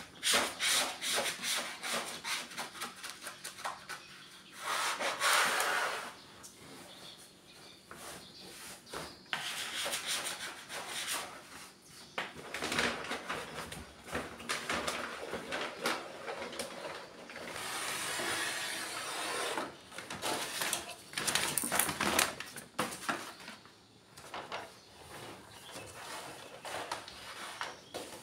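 A plastic squeegee card rubbing and scraping over self-adhesive vinyl sticker as it is pressed onto a counter, in runs of strokes with short pauses, along with handling of the stiff sheet.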